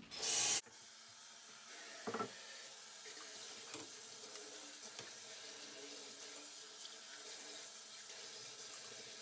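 Kitchen faucet running steadily into a stainless steel sink while boiled beans are rinsed in a pan, after a short loud rush near the start. A few light knocks of the pan against the sink, the clearest about two seconds in.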